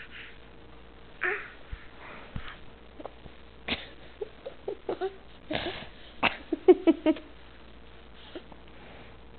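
A toddler making breathy hissing sounds in imitation of a tiger, in several short bursts, with a few mouth clicks and brief squeaky voice sounds partway through.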